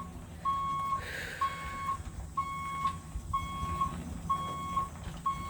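Truck reversing alarm beeping steadily, one tone about once a second with each beep lasting about half a second, over the low rumble of the truck's engine as it backs up.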